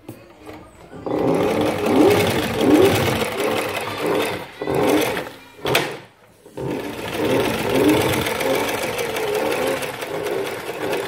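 MaqCouro 243 extra-heavy-duty sewing machine, driven by its electronic motor, stitching through lifting-sling webbing folded double. It starts about a second in, runs steadily, stops for about half a second just past the middle, then runs again.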